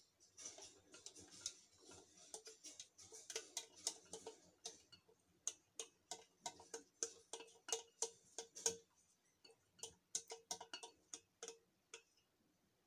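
Small wire whisk clicking and scraping against the inside of a stainless steel saucepan as thick custard is scraped out. The light clicks come quick and irregular, then stop shortly before the end.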